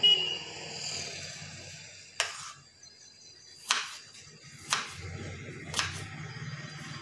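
Kitchen knife chopping watermelon rind into small cubes, each cut ending in a sharp tap on a wooden cutting board: four taps about a second apart, the first about two seconds in.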